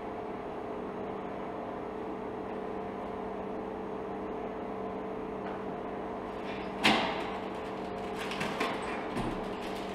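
Steady electrical hum of refrigerated vending machines. About seven seconds in comes one loud clunk, then lighter knocks and rattling as the machine's push-flap delivery bin is handled.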